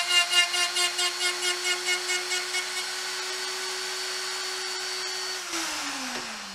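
Hercules quarter-inch electric die grinder, mounted as a lathe tool post grinder, whining steadily while its wheel grinds the point of a spinning hardened center punch, the grinding pulsing about four times a second with the punch's runout before dying away. Near the end the grinder is switched off and its whine falls in pitch as it spins down.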